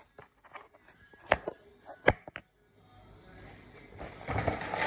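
Cardboard cereal box being handled and its top flap opened: a couple of sharp clicks, then cardboard rustling near the end.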